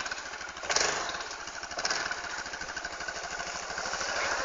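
ATV engine running with a rapid, even putter, briefly louder just before a second in.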